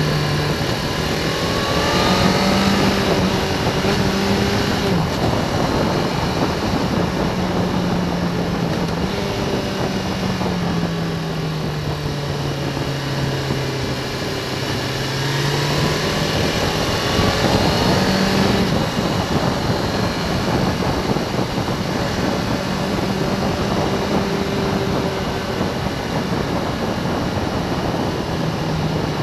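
Motorcycle engine running at road speed under a constant rush of wind and road noise, its note rising and falling with the throttle through the bends, with a long slow drop in pitch about halfway through and a climb again a few seconds later.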